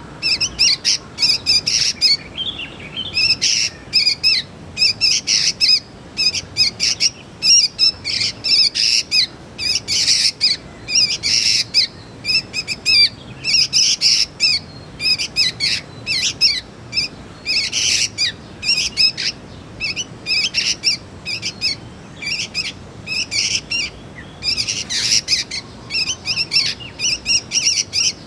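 Juvenile sooty-headed bulbuls (kutilang) calling: a rapid, continuous stream of short high chirps, several a second, with brief pauses.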